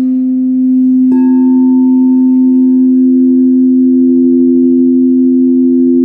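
Crystal singing bowls ringing: one bowl's low tone sustains steadily, and about a second in a second bowl is struck, adding a higher tone that rings on with the first.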